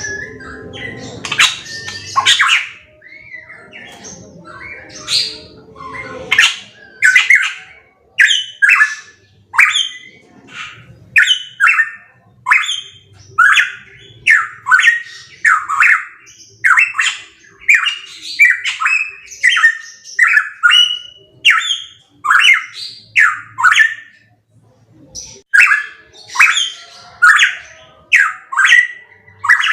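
Pitohui calling loudly: a long run of short, sharp notes, each sliding down in pitch, repeated about every 0.7 s with a brief pause near the end. A low background rumble sits under the calls in the first few seconds.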